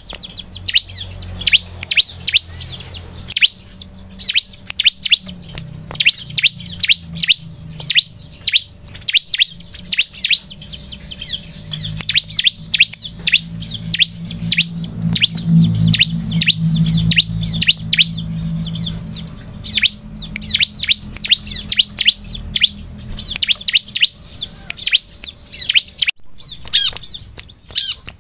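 Bar-winged prinia (ciblek) calling in rapid runs of sharp, high chirps, several a second, broken by short pauses.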